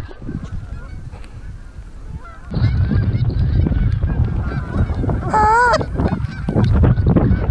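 A flock of wild geese honking as it flies over, many overlapping calls, fainter at first and much louder from about two and a half seconds in. One loud, close honk stands out a little past the middle, over a low rumble.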